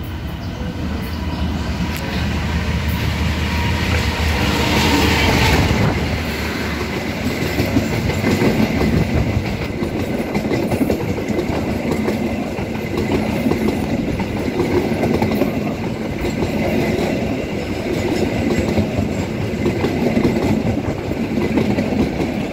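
A diesel-hauled passenger train passing close by. The locomotive's engine hum builds over the first few seconds as it goes past, then the stainless-steel coaches follow with a steady clickety-clack of wheels over the rail joints.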